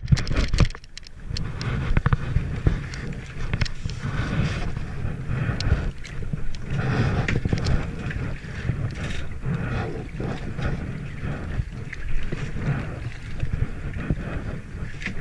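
Double-bladed kayak paddle dipping and pulling through the water, with splashing and dripping from the blades, over a low rumble of wind on the microphone.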